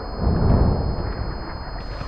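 Low rumbling sound-design drone that swells up shortly after the start and then fades back, with a faint steady high tone running over it.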